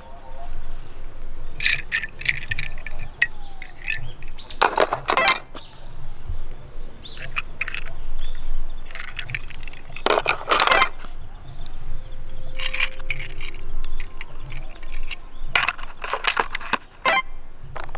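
Small die-cast toy cars clicking and clattering against a plastic carry-case as they are handled and pushed into its slots, in short runs of sharp clicks every second or two.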